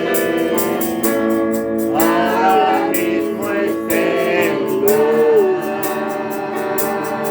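Group singing a Christian worship chorus to a steadily strummed guitar, with long held sung notes.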